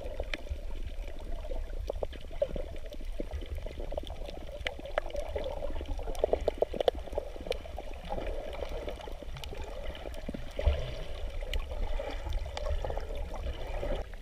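Muffled underwater sound picked up by a camera in its waterproof housing: water sloshing and gurgling over a low rumble, with many scattered short clicks.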